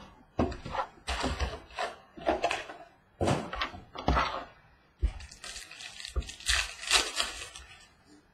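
Plastic wrap and foil trading-card packs crinkling and tearing as a sealed card box is opened and its packs taken out and handled. The sound comes as a string of short rustles, then a longer run of crinkling about five seconds in.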